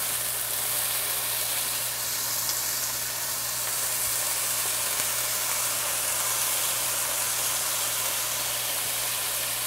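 Raw bacon strips sizzling steadily in a hot frying pan preheated on high as more strips are laid in, with a steady low hum underneath.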